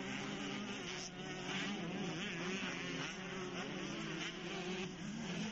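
Motocross bike engines buzzing at a distance, several overlapping, their pitch wavering up and down as the riders work the throttle around the track.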